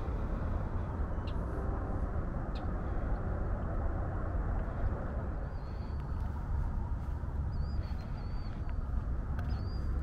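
Steady drone of highway traffic. Short high bird chips in the first few seconds, then wavering high chirps repeating from about halfway on.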